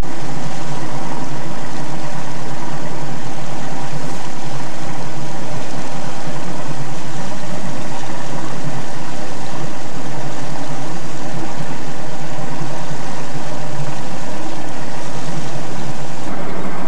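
Boat's outboard motor running steadily under way: a constant drone with wind and water hiss over it.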